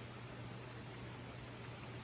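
Faint steady hiss with a constant low hum and a thin high whine: background room tone and recording noise.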